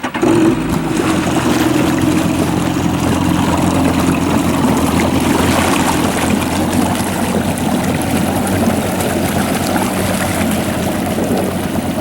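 Kawasaki STX-12F jet ski's three-cylinder four-stroke engine running under way, with a rush of water and wind. It comes on sharply about half a second in and holds steady.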